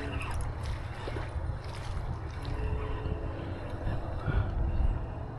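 Wind rumbling on the microphone in an open canoe, a steady low buffeting with a faint hiss of water and air above it.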